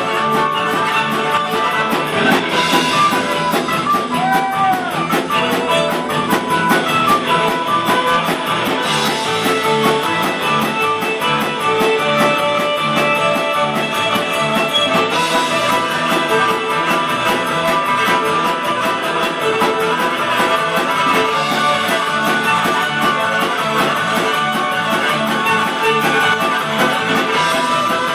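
Live rock band playing with electric guitars, bass guitar and a strummed acoustic guitar over a steady beat.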